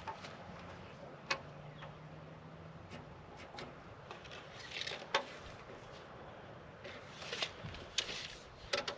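Scattered light clicks and short scratchy rubs from hand work on lumber: a tape measure and pencil marking stud positions on 2x4 wall plates.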